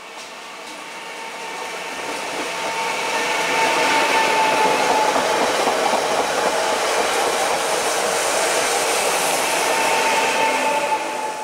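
PESA ELF2 electric multiple unit passing at speed: wheel-on-rail noise that builds as the train approaches, holds loud with a steady whine running through it, and fades as the last car goes by near the end.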